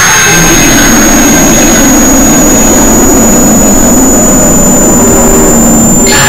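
Mashup of deliberately irritating sounds: very loud, harsh roaring noise under a piercing high steady tone that creeps slightly upward in pitch. The noise layer changes abruptly about six seconds in.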